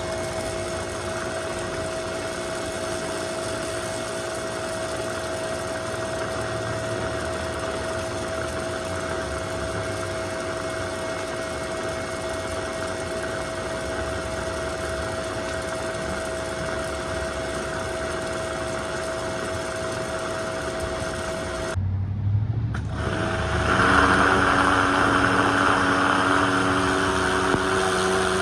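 A small engine running at a steady, unchanging speed. About 22 seconds in it cuts out briefly, then resumes louder with a strong hiss added.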